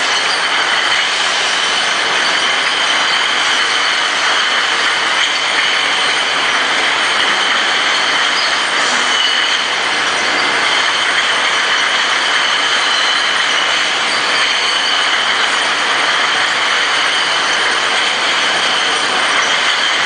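Glass bottles clinking and rattling steadily against each other as they ride a chain conveyor on a bottle-washing line, with a constant high ringing over the machinery noise.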